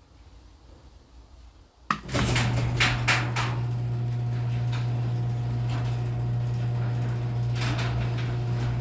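Garage door opener clicking on about two seconds in, then its motor humming steadily as it drives a non-insulated Clopay 8x7 garage door, with a cluster of clacks and rattles from the door as it starts moving and a few more near the end.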